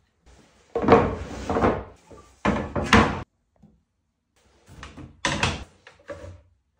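Workshop handling sounds on a panel: two loud scraping, knocking bursts in the first half, then quieter knocks and scrapes as a track saw is set onto its aluminium guide rail.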